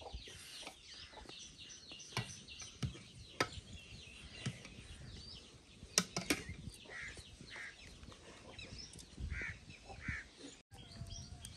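Farmyard ambience: chickens clucking now and then over the chirping of small birds, with a few sharp clicks or knocks.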